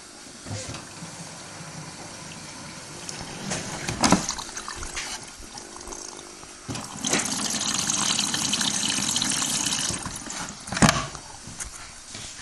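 Samsung WW80J5555 front-loading washing machine filling: water rushes in for about three seconds, over the quieter running of the machine, with a sharp knock a few seconds before the fill and another just after it.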